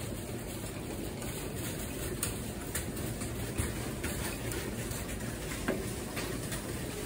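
A long döner knife shaving meat off a vertical döner spit, with light, scattered clicks and taps of the blade against the wooden spatula and metal tray, over a steady background rush.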